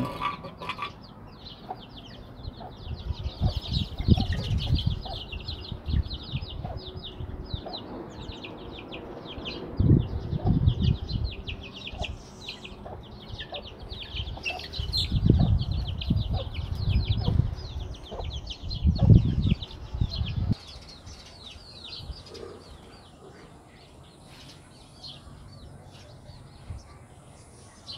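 Chickens and chicks: a dense run of rapid, high chick peeps with the odd cluck, over several loud bursts of low rumble in the first two thirds, after which it all goes quieter.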